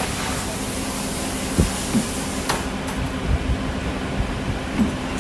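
CNC camless spring forming machine running as it forms flat wire hook springs: a steady hum with a constant tone, broken by a few short knocks and clicks from the tooling.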